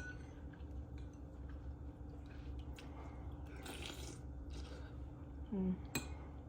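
A person chewing food with soft wet mouth sounds, then a brief voiced "mm" about five and a half seconds in and a sharp click just after.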